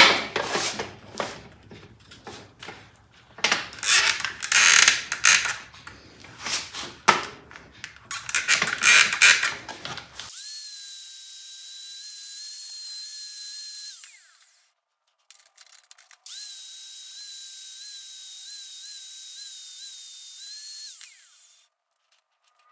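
Power tool abrading the rusted, pitted steel of an old pair of pliers to take them down to bare metal: about ten seconds of irregular rasping surges as the work is pressed on and eased off, then a steady high whine over hiss for about four seconds, a short break, and about five seconds more.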